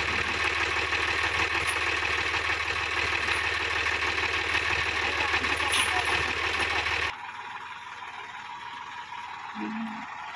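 Sonalika DI-50 RX Supreme tractor's diesel engine running steadily at idle close by. The engine sound cuts away abruptly about seven seconds in, leaving a much quieter background.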